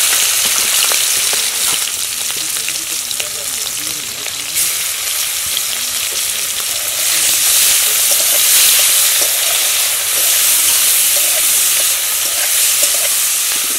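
Prawns shallow-frying in hot oil in a steel karahi, a loud steady sizzle, with a metal spatula turning them near the end.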